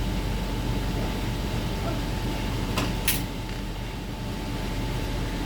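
Steady low background hum with a faint constant tone above it, broken by two short clicks close together about three seconds in.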